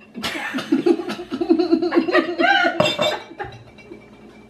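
Laughter: a quick run of short laugh pulses with a few higher squeals among them, dying down after about three seconds.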